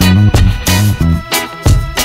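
Background music with a steady beat: a bass line and drum hits.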